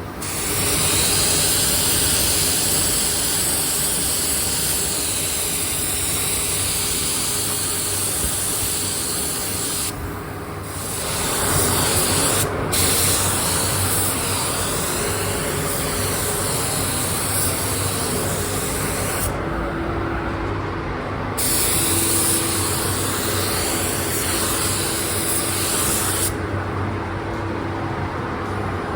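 Paint spray gun hissing as it lays down candy paint in long passes, the spray stopping briefly several times between passes as the trigger is let go.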